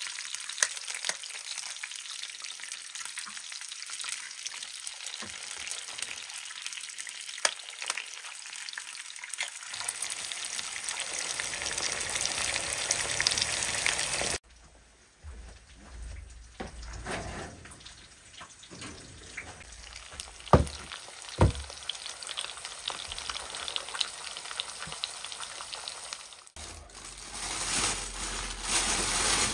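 Eggs and sausage pieces frying in oil in a pan, a steady sizzle with fine crackling that grows louder over the first half. After a cut the sizzle is quieter, with a few sharp knocks, and near the end a louder rustle of a plastic bag being handled.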